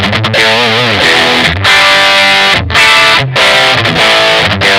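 Electric guitar played through the Vox StompLab's distortion program d5, a thick, low-heavy distortion, in loud phrases with brief stops between them and a wavering bent note in the first second.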